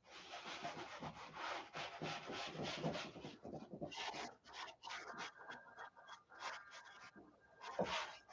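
Paint being scrubbed onto a canvas in quick, irregular rubbing strokes, with one louder stroke near the end.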